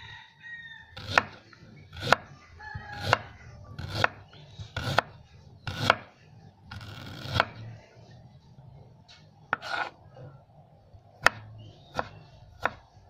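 Chef's knife slicing fresh ginger on a wooden cutting board: sharp knocks of the blade on the board about once a second, then fewer and more scattered cuts in the second half.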